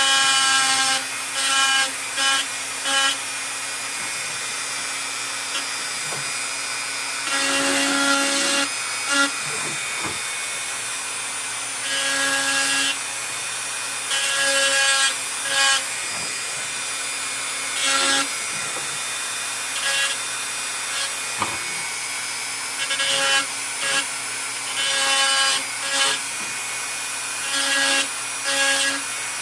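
Small high-speed rotary carving tool running with a steady hum, with repeated bursts of about a second of grinding as the bit bites into the antler knife handle.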